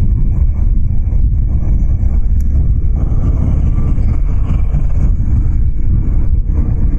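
Steady low wind and road rumble from a motorcycle ride, picked up by a helmet chin-mounted action camera's microphone.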